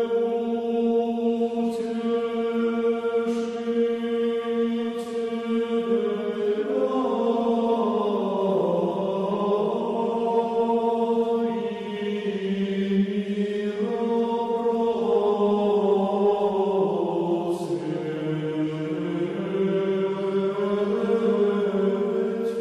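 Background music of slow choral chant: several voices hold long sustained notes that shift slowly in pitch, in the style of Orthodox church chant.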